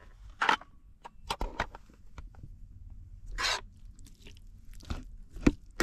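An electric lunch box cooker's plastic lid being unlatched and lifted off its metal food tray: a run of small clicks, knocks and scrapes, with a louder noise about three and a half seconds in.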